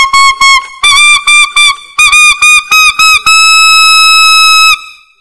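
Alto saxophone (a 2015 P. Mauriat 76XVII on a metal mouthpiece) playing loud altissimo notes. Groups of short notes, each scooped up into pitch, climb through altissimo A, B and C, then the C sharp is held for about a second and a half before stopping near the end.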